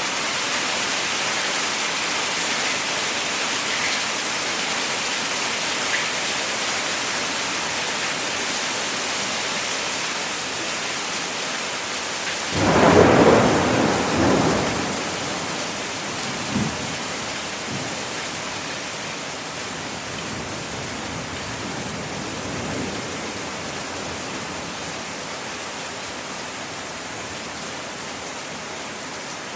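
Hail falling steadily in a continuous hiss of impacts, with a clap of thunder rumbling for about two seconds near the middle.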